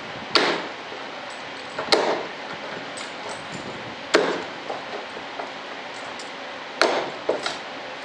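Hammer blows on the flange of a composite wing mold as it is worked apart during demolding: several sharp knocks a second or two apart, each with a short ring, the last three close together near the end.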